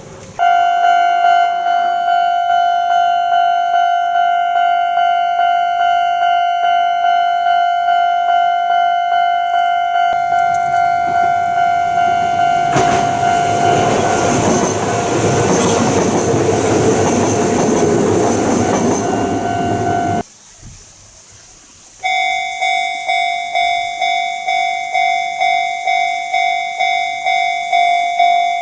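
Japanese railway level-crossing warning bell ringing in steady repeated strokes. A train passes over the crossing from about halfway, its rumble and rail noise rising over the bell. After a brief break near the end, a different crossing's bell starts up with a different tone.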